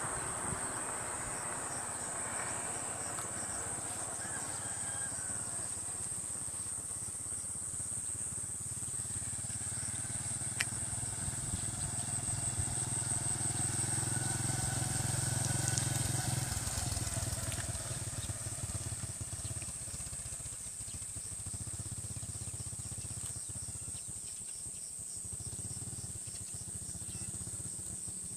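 Underbone motorbike engine approaching and passing, loudest about halfway through, then fading as it moves off. Crickets trill steadily throughout.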